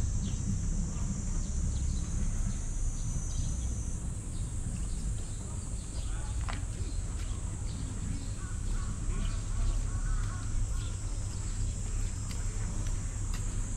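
Outdoor pond-side ambience: a steady high-pitched insect drone over a low rumble, with a bird calling in a run of short notes about two-thirds of the way in.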